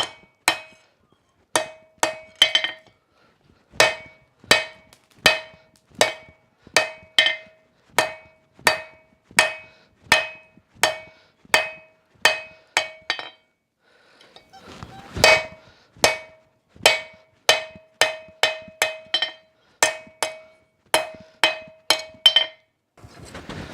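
Blacksmith's hammer forging 12 mm round bar on an anvil: steady blows, each with a bright ring, about one and a half a second. After a short break about fourteen seconds in, the blows resume a little faster.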